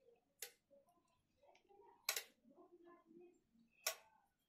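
A steel spoon tapping against steel dishware while curd is dolloped onto papdi: three short, sharp clicks a little under two seconds apart, with faint soft sounds between.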